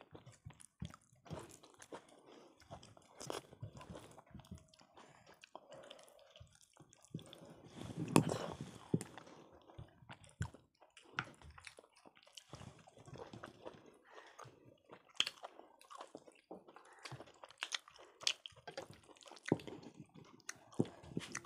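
Close-up mouth sounds of people eating khichdi and chicken kosha: wet chewing and smacking with scattered small clicks, and a louder burst about eight seconds in.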